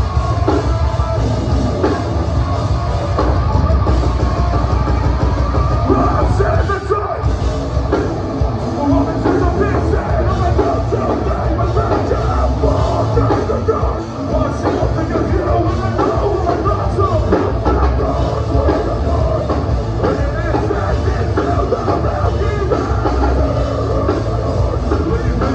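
Live heavy metal band playing loud: distorted electric guitars, bass and a drum kit, with a vocalist singing into a microphone. The sound is heard from the crowd.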